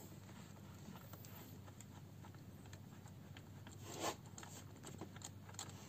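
Faint clicks and rubbing of hands and tools working on the top of a Yamaha 150 hp outboard engine, with one louder scrape about four seconds in.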